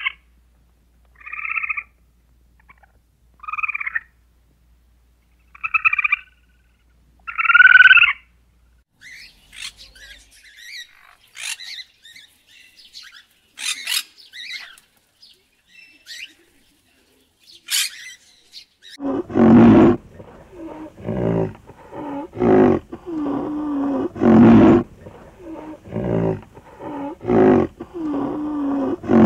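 A series of different animal calls: four short calls in the first eight seconds, then scattered high-pitched chirps, then a loud run of rhythmic calls from about nineteen seconds in.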